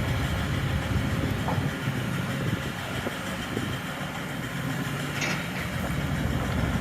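Boat engine running steadily under way, a low drone over a constant background hiss.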